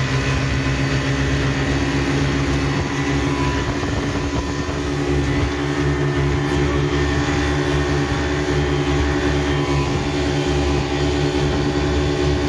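Twin 40 hp outboard motors running together at a steady cruising speed, holding an even pitch. Under them is the rush of the wake and the wind.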